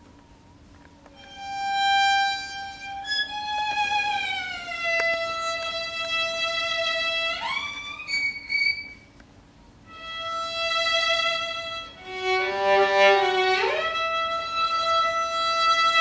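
Solo violin playing slow, high held notes joined by sliding glides, first downward and then upward, starting about a second in. It pauses briefly around the middle, then comes back with a quick flurry of notes that slides up into a long held note.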